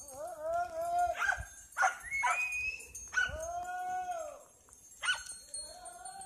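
Herding dog barking in a run of high, drawn-out yelps, about five of them, each starting sharply and held for up to a second.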